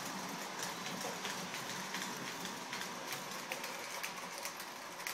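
Lionel electric toy train running on its track: a steady rattling hiss with many irregular clicks from the wheels, slowly getting quieter.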